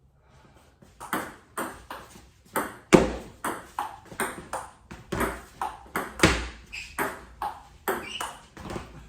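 Table tennis rally: the ball clicks against paddles and the table about three times a second in a steady back-and-forth. It starts about a second in with the serve and runs on to near the end.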